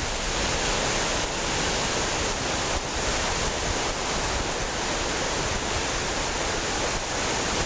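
Steady rush of a river in flood, swollen and rising after days of rain.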